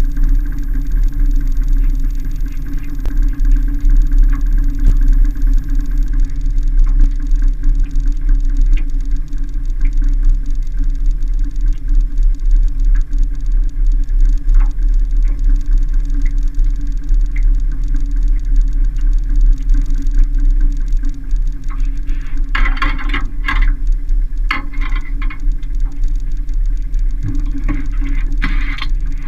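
Small boat outboard motor running steadily, a constant low rumble with a steady hum. A few short, brighter scratchy sounds break through about three-quarters of the way in and again near the end.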